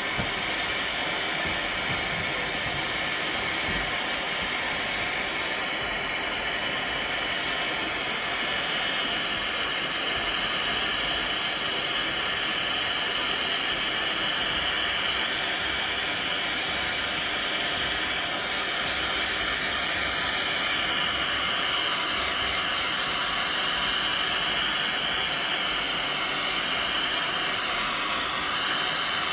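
Express Cat. No. 4600 hot air gun running steadily, blowing a constant rush of air with a high whine in it as it heats a heat-shrinkable sleeve.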